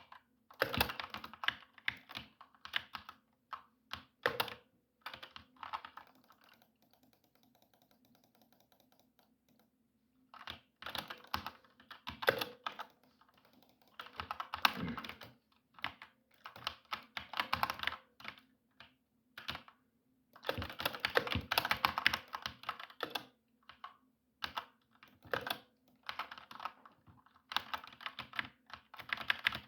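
Mechanical keyboard being typed on in quick bursts of keystrokes, with a pause of a few seconds about a quarter of the way in.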